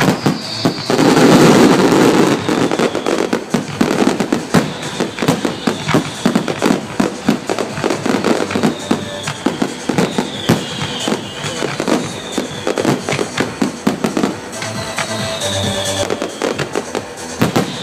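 Fireworks display going off in a rapid run of bangs and crackles, densest and loudest about a second or two in, with a few brief falling whistles. Music plays along.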